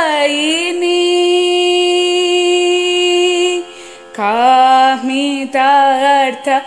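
A woman singing a Carnatic kriti without words here: one long steady note held for about three seconds, a brief break, then an ornamented phrase with the pitch swaying up and down.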